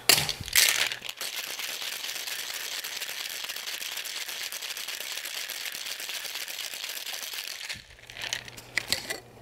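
Ice cubes rattling hard inside a Boston shaker (metal tin capped over a mixing glass) as a cocktail is shaken vigorously for about seven seconds, after a couple of knocks as the tin is seated on the glass. The rattle stops suddenly, and a few knocks of the shaker follow near the end.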